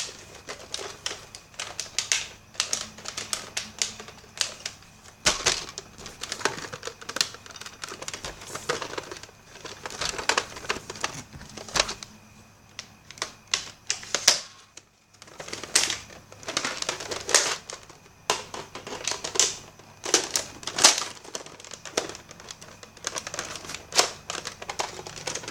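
Toy Nerf blaster's plastic mechanism being worked: clusters of quick, sharp clicks and clacks, with brief pauses between runs.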